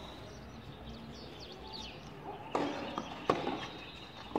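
Tennis rally on a clay court: three sharp pops of the ball off racket and court, a little under a second apart in the second half, the middle one the loudest. Birds chirp in the background before them.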